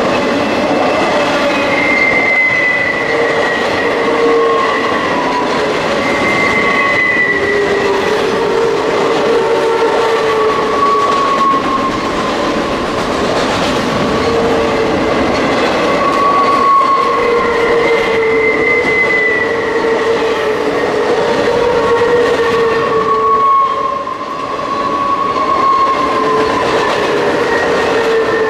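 Loaded double-stack container well cars of a BNSF freight train rolling past steadily on a curve. High wheel-squeal tones come and go, wavering in pitch, over the constant rumble of the wheels on the rails.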